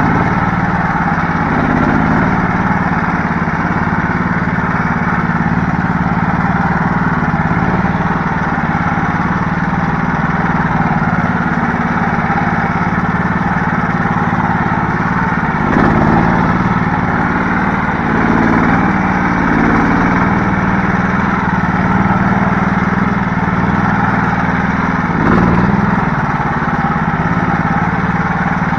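Small engine of a karakat, a homemade all-terrain vehicle, running steadily, with short shifts in its pitch about halfway through and near the end.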